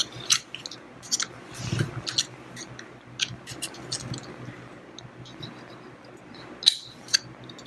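Light metallic clicks and scrapes of transmission parts being handled and worked at during gearcase disassembly, with a sharper click about seven seconds in.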